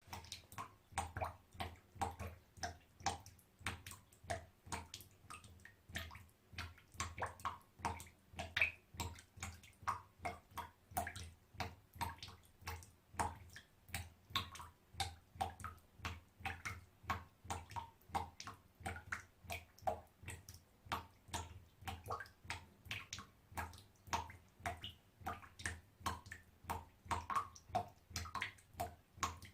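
Small water droplets dripping into a bathtub: a continuous, irregular run of short plinks, about three a second.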